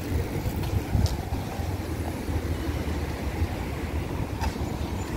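Steady road traffic noise from cars driving past, a low rumble without distinct events.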